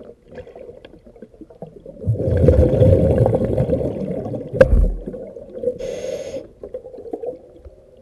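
Scuba diver breathing through a regulator underwater: a long, loud rumble of exhaled bubbles with a sharp click near its end, then a short hiss of the next breath. A faint steady hum runs underneath.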